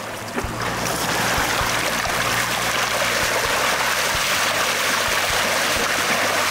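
Water rushing and splashing around a sailfish held alongside a moving boat for release. The sound builds about a second in, then holds steady over the low hum of the boat's engines.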